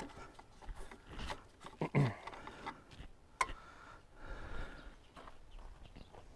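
Coolant draining from a Bobcat T595 cooling system through a hose into a plastic drain pan, with scattered clicks and knocks of handling as the radiator cap is released. The loudest moment is a brief low falling sound about two seconds in, and there is a sharp click a little later.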